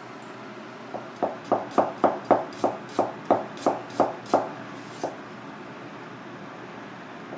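Kitchen knife chopping on a cutting board: about a dozen quick, even strokes, roughly three a second, then a single last stroke about a second later.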